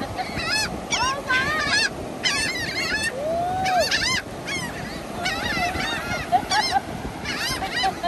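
A flock of gulls calling over one another: many short, arched squawks in quick overlapping series, over a steady background hiss.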